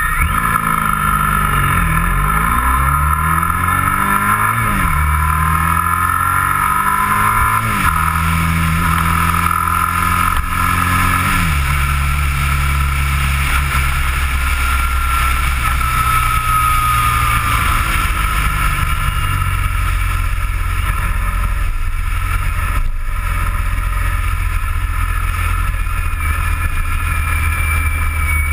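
Motorcycle engine pulling away from a stop and accelerating up through the gears: its pitch climbs and drops back at three upshifts within the first twelve seconds or so, then it runs steadily at cruising speed.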